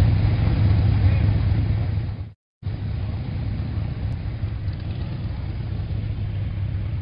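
Motorcycle engine running with a low rumble; it cuts out briefly about two and a half seconds in and comes back a little quieter.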